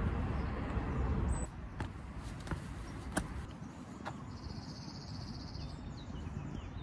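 Light rustling and a few soft clicks of a jacket being handled, over a low outdoor rumble. A brief high, buzzing trill lasts about a second around the middle.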